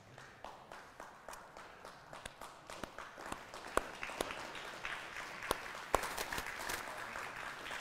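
Congregation applauding: scattered hand claps that thicken into fuller applause from about three seconds in, with a few sharp, louder claps close by.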